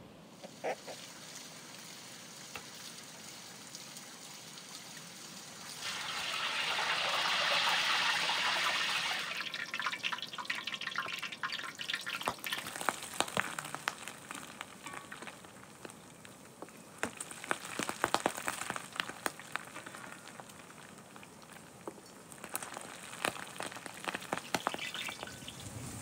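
Meat boiling hard in a clay pot, the water bubbling and spitting with many small crackles. About six seconds in a louder rushing hiss rises for a few seconds before the crackling bubbling takes over.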